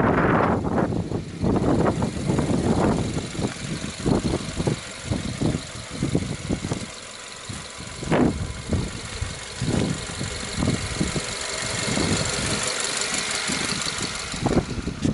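Subaru flat-four engine idling steadily with the bonnet open, its high whine and hiss growing louder near the end as the open engine bay comes close. Irregular wind gusts buffet the microphone throughout.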